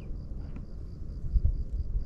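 An insect chirping in an even rhythm, about four short high pulses a second, over a low rumble that swells about a second and a half in.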